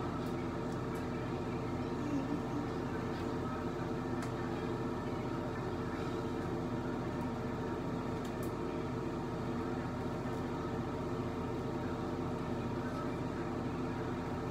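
Steady mechanical hum made of several even tones, holding the same level throughout, with a few faint clicks here and there.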